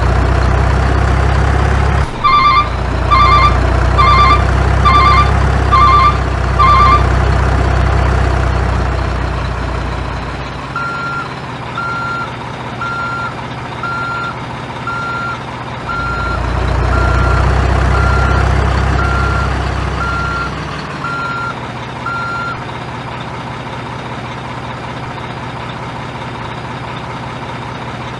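Electronic truck sound effects from a toy dump truck: a looped diesel-engine rumble with a reversing alarm. The alarm gives quick double beeps for the first several seconds, then steady single beeps about once a second. Near the end only a quieter engine hum remains.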